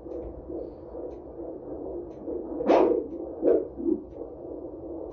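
Fetal doppler's speaker giving a steady whooshing noise with no even heartbeat rhythm. Irregular louder swooshes come about two and a half seconds in, then twice more shortly after. The probe is picking up the baby's movement rather than its heartbeat.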